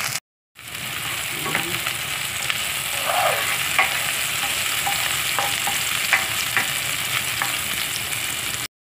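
Onion, garlic, ginger and freshly added tomato sizzling in hot oil in a frying pan, with a spatula scraping and clicking against the pan as they are stirred. The sound cuts out briefly just after the start and again just before the end.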